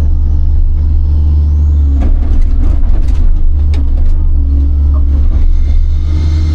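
A big excavator's diesel engine running with a heavy, steady low rumble. Scattered sharp knocks and scrapes come between about two and four seconds in.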